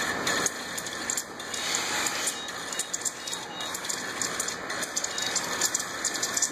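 Sinker EDM burning holes into a steel knife blade: flushing streams of dielectric fluid splashing over the blade and electrode, with a fine, continuous crackle of sparking.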